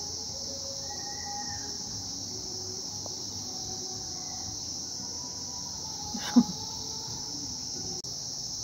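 Steady high-pitched insect chirring throughout. About six seconds in, a single short, sharp sound falls quickly in pitch and stands out above it.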